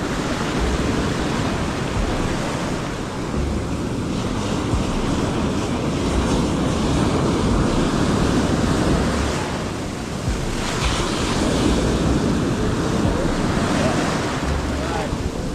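Ocean surf breaking and washing up the beach around a low-held microphone, swelling and easing as the waves come in, with wind buffeting the microphone.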